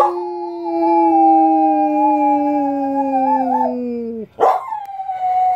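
Dog howling: one long howl of about four seconds that slowly falls in pitch and wavers near its end, then a quick breath and the start of another howl.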